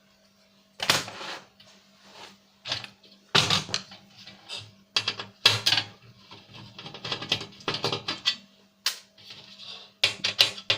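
Irregular clicks, knocks and clatter of a DVD player's circuit board and plastic and metal parts being handled and set down during a teardown, over a faint steady hum.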